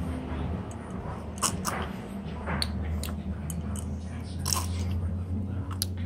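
A person biting into and chewing a toasted triple grilled cheese panini, with a few short crunches of the grilled bread, over a steady low hum.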